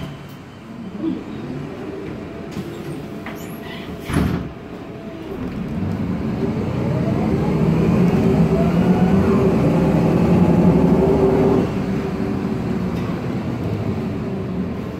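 Cabin sound of a 2010 MAN Lion's Classic city bus with a CNG engine and ZF automatic gearbox: a sharp knock at the start and another about four seconds in. About six seconds in, the drivetrain builds into a rising whine under acceleration, which the uploader takes for differential noise. It eases off suddenly near the end.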